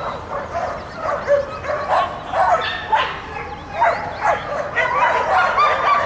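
Dog barking and yipping over and over, short high barks coming in quick succession.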